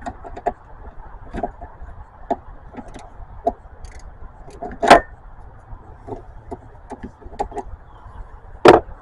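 Ratchet and 10 mm socket clicking in short strokes on a car battery's negative terminal clamp nut as it is loosened, with two louder metallic knocks, one about halfway and one near the end.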